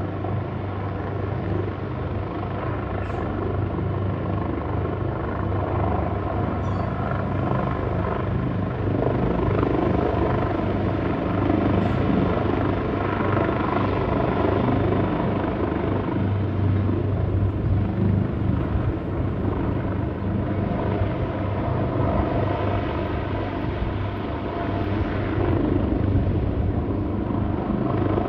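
Leonardo AW139 twin-turbine helicopter running on its helipad, rotor turning, a steady drone that grows gradually louder.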